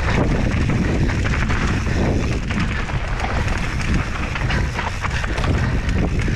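Wind rushing over the microphone during a mountain-bike trail descent, a steady low rumble, with the bike and its tyres rattling over rough ground in many small knocks.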